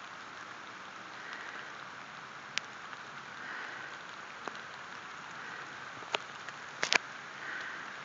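Steady hiss of pouring rain, with a person's heavy breathing swelling about every two seconds. A few sharp clicks cut through, the loudest pair near the end.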